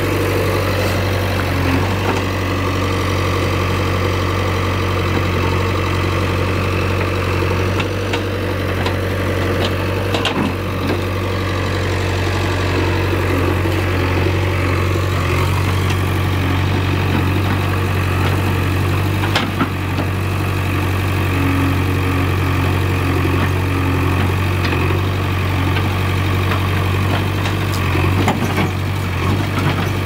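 JCB backhoe loader's diesel engine running steadily while the rear backhoe digs into a dirt mound, with a few brief knocks about ten, nineteen and twenty-eight seconds in.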